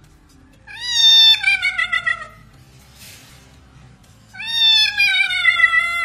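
A wet domestic cat being bathed meows twice in long, drawn-out calls, each sliding down in pitch, the first breaking into a wavering warble near its end: a cat's protest at the bath.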